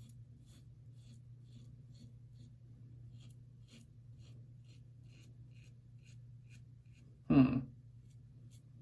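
Double-edge safety razor with a Wilkinson Sword blade scraping through face-lathered stubble in short strokes, a faint scratchy rasp about twice a second. A brief louder vocal sound comes about seven seconds in.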